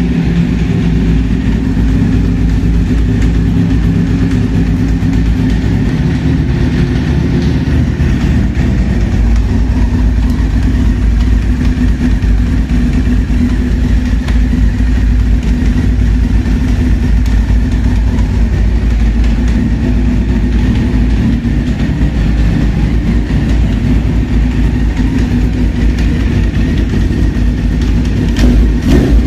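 Honda CBR four-cylinder motorcycle engine idling steadily, running on three cylinders, which the owners put down to dirty, badly adjusted carburettors. A few knocks near the end.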